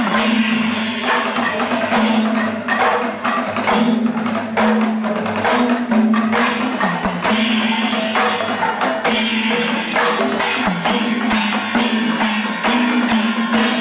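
Kerala temple festival percussion ensemble playing: rapid drum strokes and clashing hand cymbals over a steady held tone.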